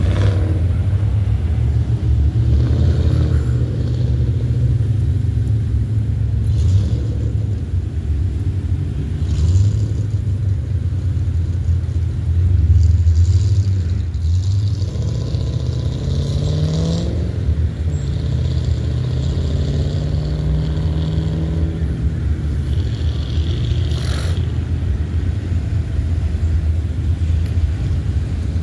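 Cars and trucks rumbling past in slow, crowded traffic. An engine revs up about halfway through, and again a few seconds later.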